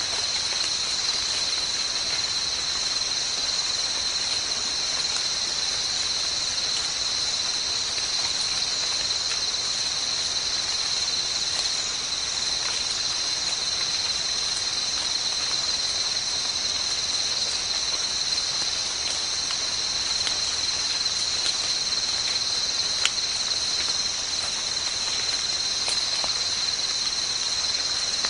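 Steady, high-pitched insect chorus buzzing without a break in forest undergrowth, with a few faint clicks and one sharper click about three-quarters of the way through.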